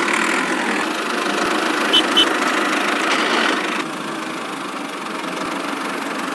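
Small motor of a miniature model tractor running steadily with an engine-like hum, with two short clicks about two seconds in. The sound drops a little in level about four seconds in.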